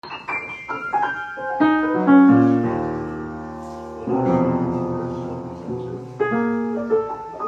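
Solo piano music: quick runs of single notes, with full chords struck about two and four seconds in and left to ring and fade.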